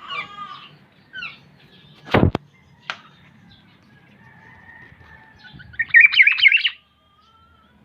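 Black-naped oriole calling: a slurred call at the start, a short note about a second in, and a loud burst of rapid warbling notes about six seconds in. A single sharp knock sounds about two seconds in.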